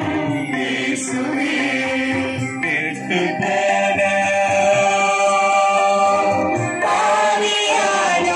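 Choir singing a devotional hymn, holding long notes, with a change of notes near the end.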